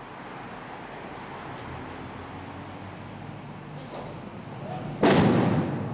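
Quiet outdoor background with a few faint high chirps, then about five seconds in a single loud bang that dies away over about a second: a stun grenade (flash-bang) set off inside an apartment during a police entry.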